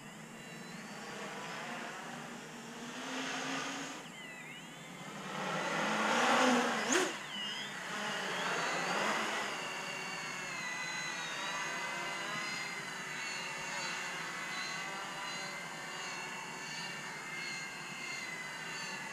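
Large 800 mm X-Class racing quadcopter on a 12S battery in flight: its motors and propellers give several high whines that rise and fall with the throttle. The whine swells to its loudest about six to seven seconds in, then settles into a steadier, wavering whine.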